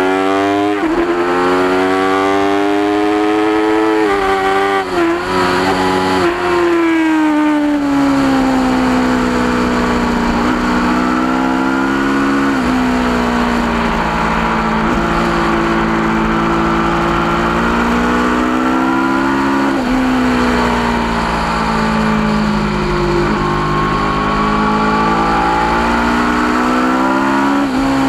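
Aprilia RSV4's V4 engine at high revs under way on a race track, with wind rush on the microphone. The pitch climbs, drops sharply twice a few seconds in as it upshifts, then holds high with slow rises and falls and a few brief dips.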